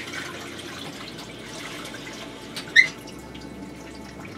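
Kitchen tap running as hands are washed at the sink, with a brief high squeak a little under three seconds in.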